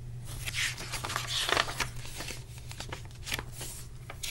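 A page of a paper picture book being turned and the book handled: paper rustling and crinkling with several small clicks.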